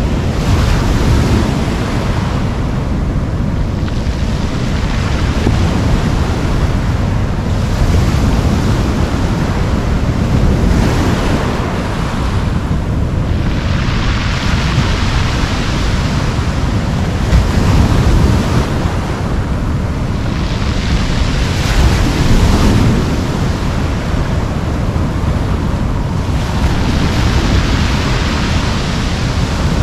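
Sea surf breaking and washing up a cobble beach, swelling every few seconds, over a steady heavy rumble of wind on the microphone.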